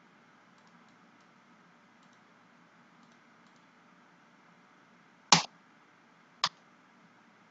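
Faint computer mouse clicks over low room hiss, then two loud, sharp clicks or knocks a little over a second apart, past halfway, the first the louder.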